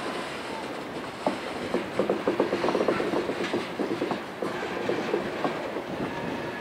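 Freight cars of a slow-moving train rolling past on flooded track, their wheels clicking and knocking over the rail joints. The run of clicks is thickest from about two to three and a half seconds in.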